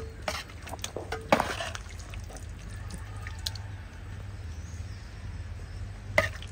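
A few sharp light clicks and knocks, several in the first second and a half and a couple more near the end, over a steady low hum.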